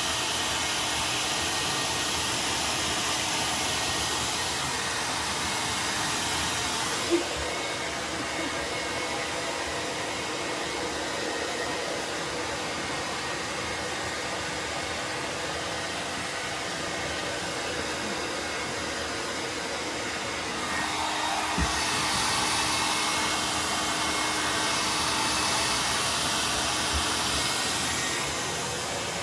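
Hand-held hair dryer blowing steadily on a dog's coat. Its rushing hiss turns duller about seven seconds in and brightens again about twenty-one seconds in, with a single sharp click about seven seconds in.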